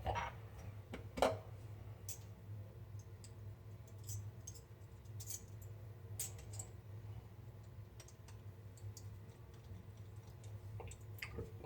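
Faint, scattered small clicks and taps of a Gillette Heritage double-edge safety razor being handled as a Wilkinson Sword blade is loaded into it, the sharpest click about a second in.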